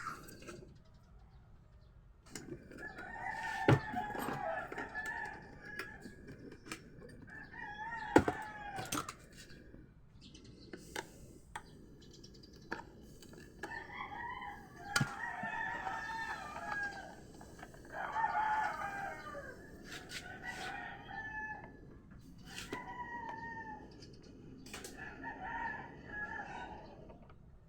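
Chickens calling on and off: repeated wavering calls lasting a second or two, with a rooster crowing among them. Scattered sharp clicks and knocks come between the calls.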